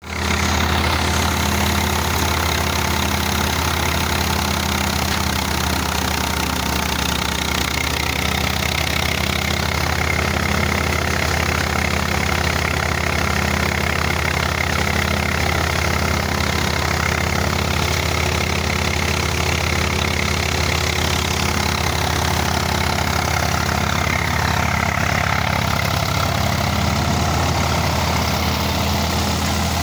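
Tractor engine running steadily under load, driving a multicrop thresher as it threshes maize: a constant low drone with a faint regular pulse, and an even noise of the threshing machinery above it.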